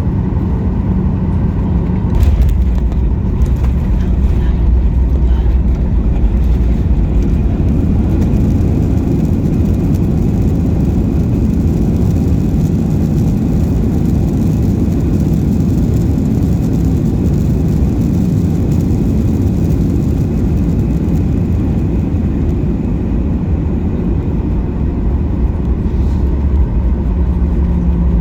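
Boeing 737-800 heard from the cabin during landing: a sudden jolt with clicks about two seconds in, typical of main-gear touchdown, then a loud, steady rumble of the CFM56 engines and the wheels on the runway rollout that eases a little near the end.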